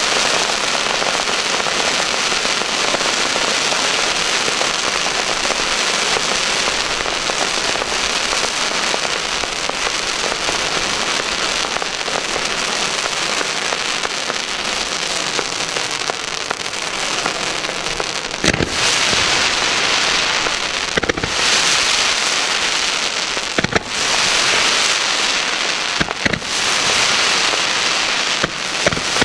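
Fireworks display: a continuous dense crackle and hiss from white sparkling fountains and rising comets, with about four sharp bangs in the second half, a few seconds apart.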